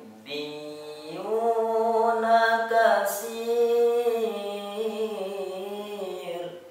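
A boy's voice reciting the Qur'an in the melodic tilawah style, drawing out one long ornamented phrase that rises about a second in, then slowly sinks and fades just before the end.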